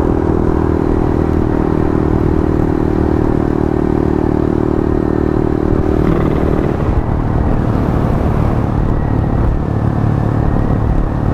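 Honda Grom's small single-cylinder engine running under way, heard through a helmet mic; its higher engine note drops away about six and a half seconds in, leaving a lower, steadier note. Wet-road and wind noise run under it.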